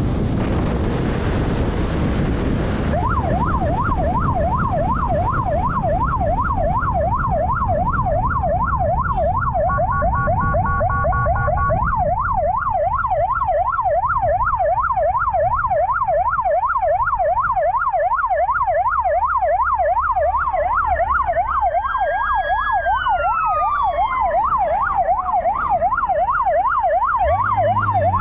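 Police motorcycle siren in a fast yelp, a rapid, even up-and-down whoop over wind and engine noise, starting about three seconds in. It is briefly overlaid with steady tones, and later a slower siren tone rises and falls alongside it.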